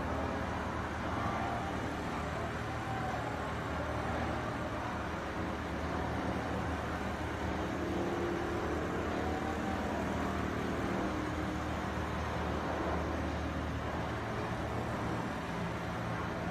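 Computerised long-arm quilting machine running as it stitches a quilt: a steady low mechanical hum with faint whines that rise and fall in pitch as the sewing head travels over the frame.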